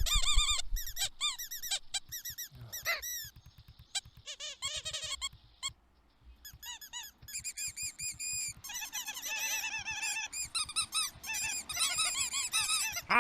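Cartoon small birds chattering in squeaky voices: many short, high chirps in quick overlapping runs, with a brief pause about six seconds in.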